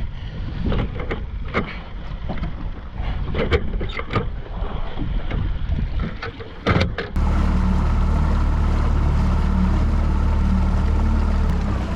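Irregular knocks and clatter of gear being handled on a boat. About seven seconds in, a boat motor starts abruptly and runs at a steady pitch as the boat moves off.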